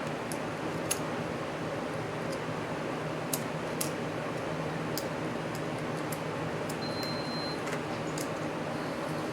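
Light scattered clicks and ticks of small model-train parts and tools being handled, over a steady background hum. A faint, brief high tone sounds about seven seconds in.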